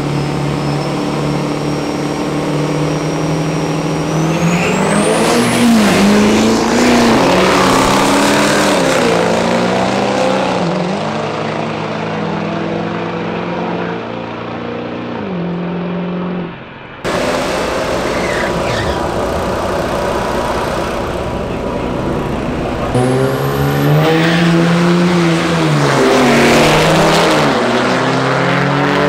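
Diesel drag trucks launching hard down the strip: the engines climb and drop in pitch through the gear changes under a high rising turbo whine. The sound cuts off suddenly about halfway through, and a second truck launches the same way near the end.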